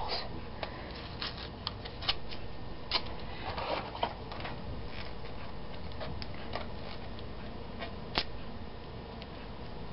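Thin plastic wrapping crinkling and rustling as it is worked off a clear plastic toy blaster, with scattered light clicks and taps of hard plastic. One sharp click stands out about eight seconds in.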